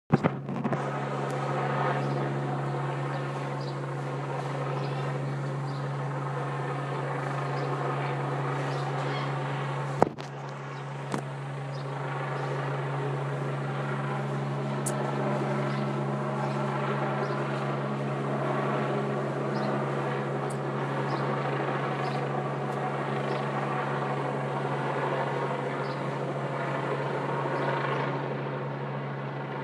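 Helicopter hovering overhead: a steady drone with an even low hum that holds its pitch. Two sharp clicks about ten and eleven seconds in.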